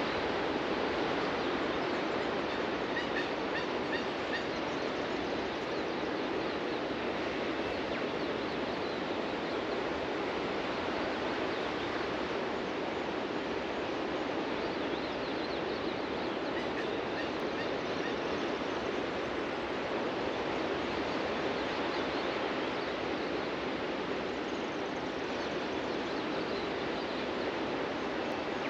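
Ocean surf breaking on a beach, a steady continuous rush of waves. Faint bird chirps come through a few times.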